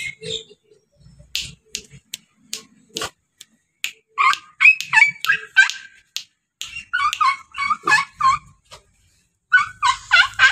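Puppy yapping in quick runs of short, high yelps from about four seconds in, after a few sharp clicks.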